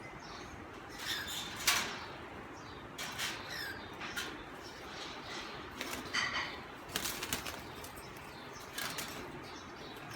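Pet parrots flapping their wings in short flurries, several times over, as they are handled and moved between cages.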